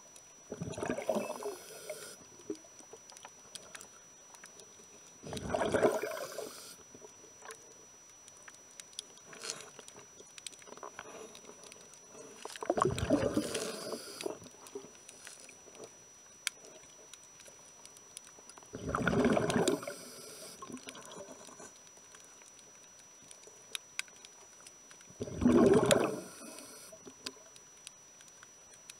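A scuba diver's exhaled breath bubbling out of the regulator underwater, five times at about six-second intervals, each lasting a second or two, with faint crackling between breaths.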